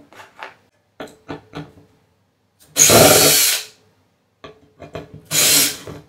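Cordless drill-driver running in two short bursts, about a second each, driving the screws that clamp the processor in the CPU socket of a 2013 Mac Pro processor board.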